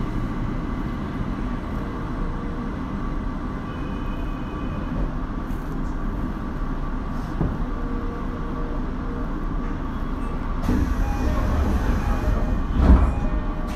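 Running noise of a Tokyo Metro Marunouchi Line 02 series subway train, heard from inside the car: a steady rumble that swells near the end, with one sharp knock just before it ends.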